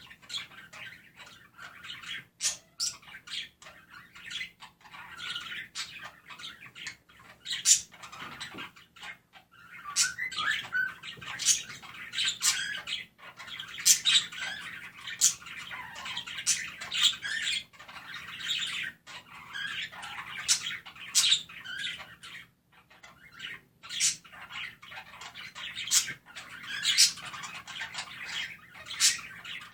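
Budgerigars chirping and warbling loudly: a running chatter broken by frequent sharp, high chirps and squawks, with a couple of brief lulls.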